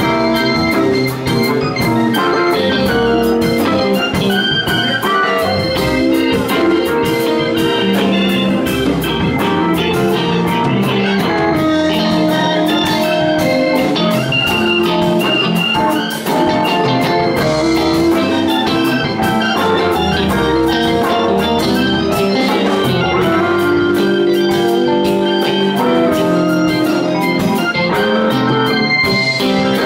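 Live band playing an instrumental passage: a Yamaha S80 keyboard on an organ sound, over electric guitar, bass and drum kit.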